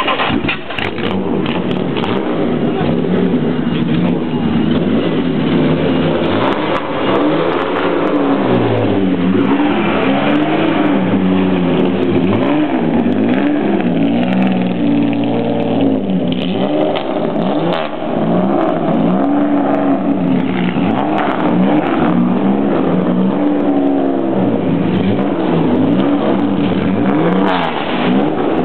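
Jaguar D-type's straight-six engine running and being revved up and down over and over, the pitch rising and falling every second or two.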